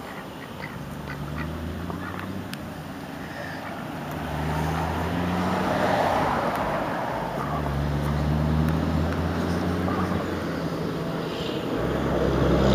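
Domestic ducks, white Pekins among them, quacking at close range, with a low rumble coming and going beneath.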